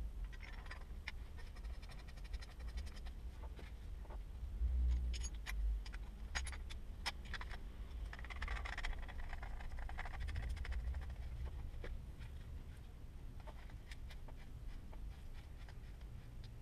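Handling noise: scattered light clicks and knocks, with a brief scraping or rubbing sound about eight seconds in, over a low rumble.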